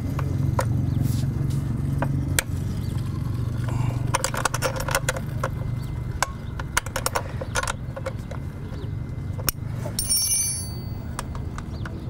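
Hand tools working a motorcycle's rear chain adjuster bolt, a hex key and a wrench clicking and clinking against the metal in quick sharp taps, with a brief metallic ring about ten seconds in. A low hum runs underneath.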